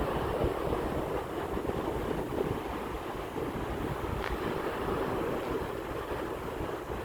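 Sea waves washing in steadily, with wind buffeting the microphone in a constant low rumble.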